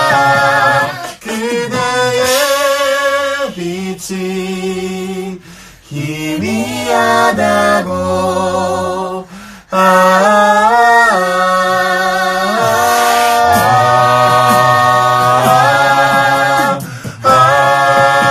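A cappella vocal group singing in close harmony: several voices, a low bass line under held upper chords, with short breaks between phrases.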